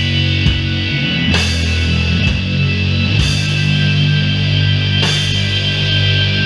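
Doom metal band playing live: slow, heavy sustained chords held low, with a cymbal crash about every two seconds, three times.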